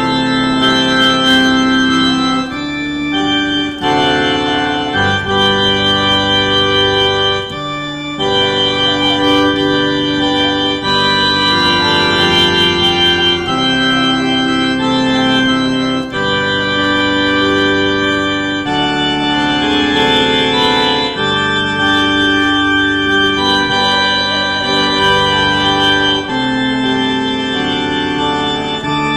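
Organ playing slow held chords that change every second or two.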